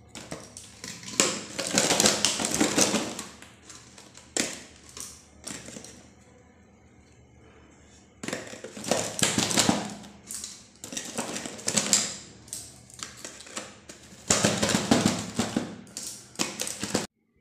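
Crisp deep-fried gulgula pua being dropped by hand one after another into a clear airtight container, knocking and scraping against it and the steel plate in irregular clusters, with a pause of about two seconds near the middle.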